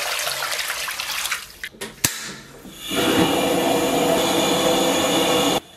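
Water poured from a bowl splashes into a wok of pork belly and ribs. About two seconds in comes a single sharp click, then a gas wok burner runs steadily until the sound cuts off abruptly near the end.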